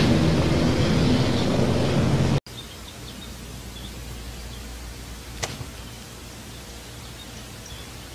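A loud rushing noise stops abruptly about two and a half seconds in. It leaves a faint hiss with scattered small bird chirps from a nature video playing on a laptop, and one sharp tap about halfway through.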